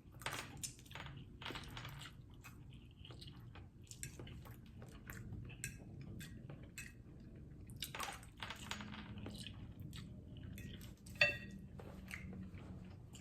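A person eating noodles close to the microphone: soft chewing and wet mouth sounds with many small scattered clicks. About eleven seconds in there is one louder, short ringing clink.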